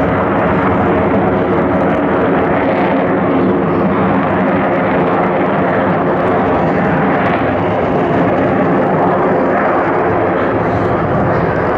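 Steady jet engine noise from a formation of military aerobatic display jets flying overhead.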